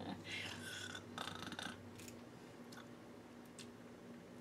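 Soft breathy noise over the first second or two, then a few faint clicks as a forkful of food is lifted to the mouth, over a faint steady hum.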